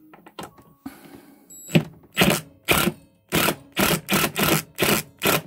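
Cordless drill driving a screw into a wooden cabinet panel in short pulses of the trigger: a few light clicks, then about nine brief bursts of the drill, roughly two a second.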